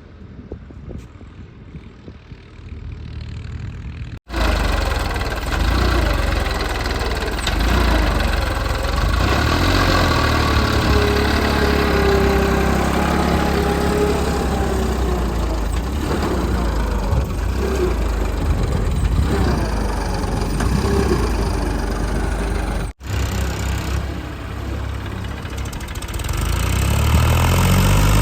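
Diesel engine of a JCB 3DX backhoe loader running and working, its pitch rising and falling with load. Quieter for the first four seconds, then an abrupt jump to a louder stretch, with another sudden break a few seconds before the end.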